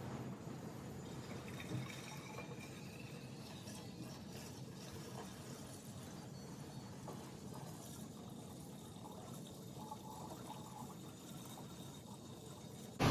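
Faint pouring of liquid, with a thin tone rising in pitch over the first few seconds as a container fills.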